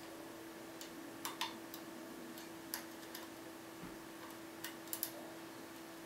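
Lock pick working the pins of a six-pin Thirard Trafic 6 cylinder under tension: small, sharp metallic clicks, about ten, coming irregularly in little clusters.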